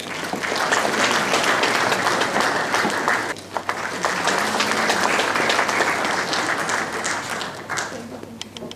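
Audience applauding with many hands, steady for most of the time, then thinning out and dying away near the end.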